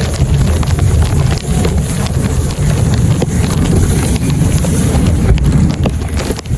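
Wind buffeting the microphone in a heavy, uneven low rumble, with scattered short crunches and scrapes in snow.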